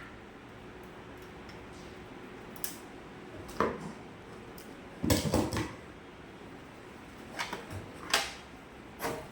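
Scattered metal clinks and knocks from a network video recorder's sheet-metal case being worked open with a screwdriver, with the loudest quick cluster about five seconds in.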